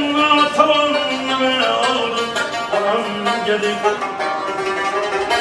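A street musician playing a folk melody on a long-necked stringed instrument, with long held notes that slide in pitch.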